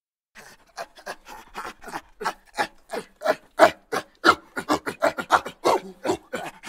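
An animal's rapid rasping pants, about four a second, starting about half a second in and growing louder.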